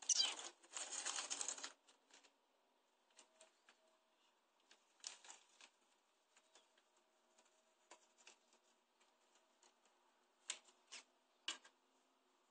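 Faint rustling and scattered light scratching ticks from a pet rat scrabbling about and being handled. There is a denser burst of rustling at the start and a few sharper ticks near the end.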